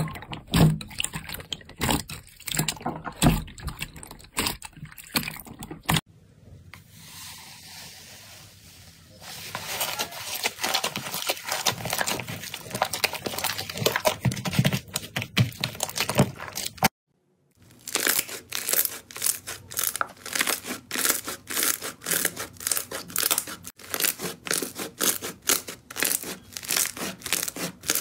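Hands squeezing and kneading slime in bowls, making rapid sticky clicks, crackles and pops. About six seconds in it goes quieter for a few seconds. A little past halfway it cuts out briefly, then a dense, even run of pops follows.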